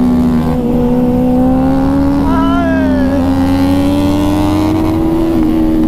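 Motorcycle engine running steadily at cruising speed, its pitch climbing slowly and easing off again near the end. A brief gliding tone comes in about two and a half seconds in.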